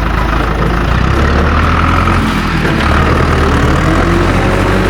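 Steady engine-like rumble, deep and even.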